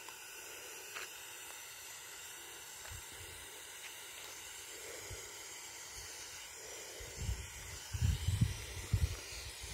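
Pyrotechnic smoke stick burning with a steady hiss as it pours out white smoke. Low rumbling bumps come in over the hiss about seven seconds in.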